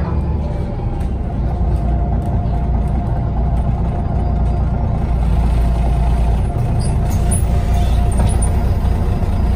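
MAN NG363 Lion's City articulated bus running, heard from inside the cabin: a steady low engine and driveline rumble, with a thin steady whine joining it about halfway through as the sound grows a little louder.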